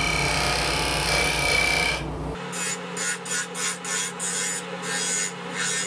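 A lathe gouge cutting into a wooden turkey-call blank spinning on a wood lathe, over the hum of the running machine. It makes a steady cutting hiss for about two seconds, then a run of short cuts at about three a second.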